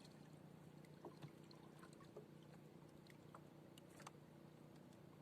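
Near silence: faint background with a steady low hum and a few soft, scattered clicks.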